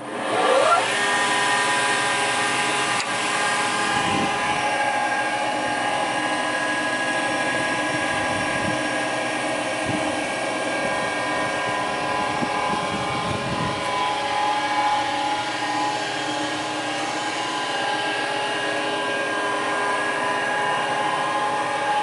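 STEHLE spindle moulder (wood shaper) starting up: the motor and spindle whine rises in pitch over about the first second as they spin up to speed. It then runs steadily and unloaded with an even hum and whine, with no cutter on the spindle.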